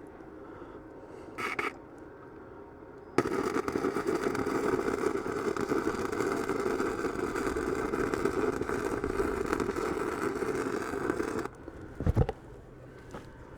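Electric arc welder laying a bead: a steady crackle that starts abruptly about three seconds in and cuts off sharply some eight seconds later, followed by a couple of short knocks.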